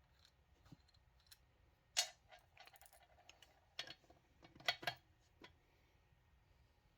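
Light clicks and clinks of small metal parts being handled while caster hardware is fitted to a mechanic's stool: a sharp click about two seconds in with a brief faint ring after it, another near the middle, and a quick pair a little later.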